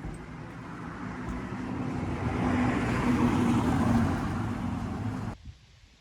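A motor vehicle passing close by, engine hum and road noise growing louder to a peak about three seconds in, then cutting off suddenly near the end.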